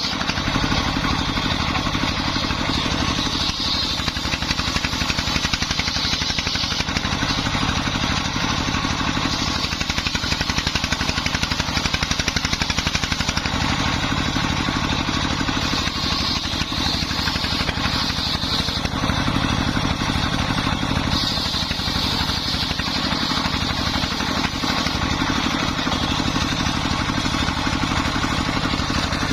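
Dongfeng 24 hp single-cylinder diesel engine running steadily, driving a homemade circular saw, with a brighter hiss that comes and goes at intervals over the engine's steady beat.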